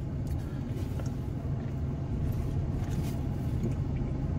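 Steady low rumble of an idling car engine, with a few faint clicks.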